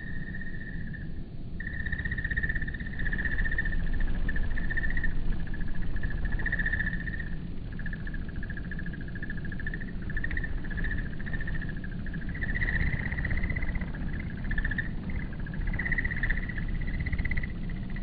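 Slowed-down outdoor ambience at one-fifth speed: a high chirring insect chorus, lowered in pitch to a steady wavering drone, over a low rumble. The drone swells and fades a few times.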